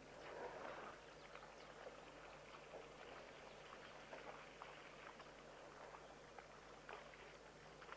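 Faint outdoor ambience, close to silence: a low hiss and a steady low hum with soft, scattered ticks and clicks, and a slightly louder soft rustle about half a second in.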